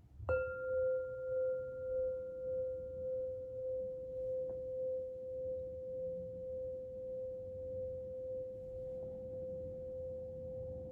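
Crystal lyre struck once, then ringing on as a single pure, steady tone with a slow wavering pulse; a higher overtone dies away after a few seconds, and there is a faint tap about four and a half seconds in.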